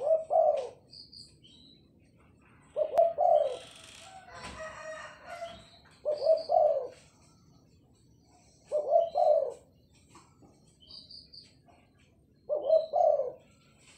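Spotted dove (tekukur) cooing in its cage: five phrases about three seconds apart, each a quick run of low coo notes lasting about a second.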